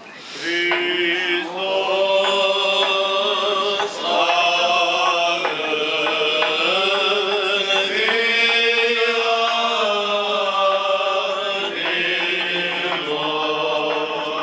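Orthodox church chant sung by voices, beginning about half a second in, with long held notes that move slowly from step to step.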